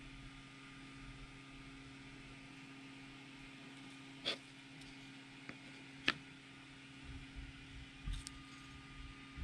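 A few light clicks and knocks of 3D-printed plastic speaker parts being picked up and set down on a cutting mat, scattered over several seconds, over a steady low hum.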